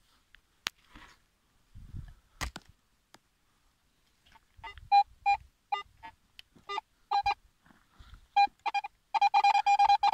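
Metal detector's audio signal: short beeps at one pitch as the coil is swung over the ground, coming closer together and running into a fast string of beeps near the end. A sharp click and a thump sound in the first few seconds.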